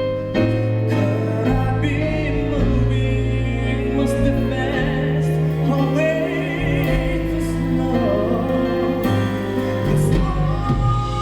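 Live band playing a slow ballad while a singer holds long, wordless notes with vibrato.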